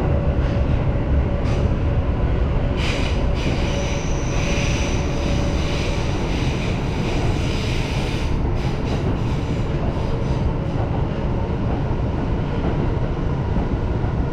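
Tokyo Metro Marunouchi Line subway train running through a tunnel, heard from inside the front cab: a steady rumble of wheels on rail. From about 3 to 8 seconds in there is a high squeal of the wheels on the rails, with a few sharp clicks.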